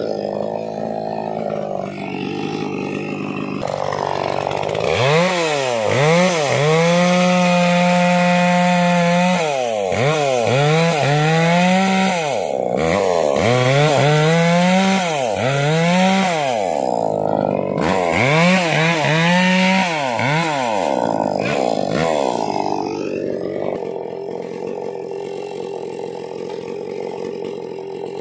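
Maximus 57cc two-stroke chainsaw cutting through a log. It runs low at first, climbs to a high, held rev, then revs up and down about every two seconds through the cut, and drops back to a low idle near the end.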